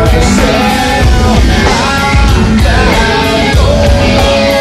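Live nu-metal band playing loud: electric guitars, bass and drums.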